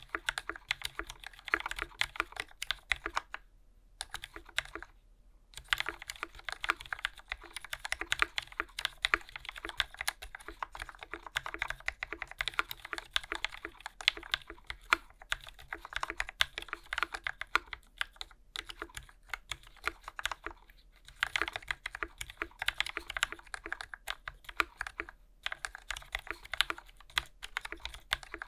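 Typing test on an iNETT Square.X 60 polycarbonate mechanical keyboard: a steady run of fast key clacks with a short pause about four seconds in. Its keycaps are warped from dyeing, which makes the typing quieter but makes about half the key presses feel bad.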